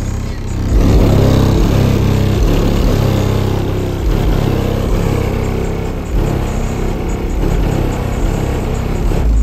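Car audio subwoofers playing bass-heavy music very loud, the low bass dominating in heavy sustained pulses.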